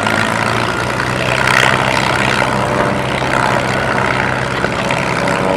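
Propeller aircraft engine running steadily, an even low hum with no change in pitch.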